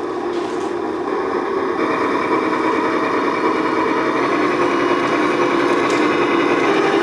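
Homemade RC truck's motor and gear drive running with a steady mechanical whine, growing gradually louder.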